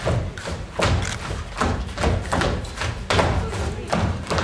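Dancers' feet stamping in unison on a stage floor in a Lika circle dance (kolo). A heavy stamp falls about every 0.8 seconds, with lighter steps in between, and there is no instrumental music.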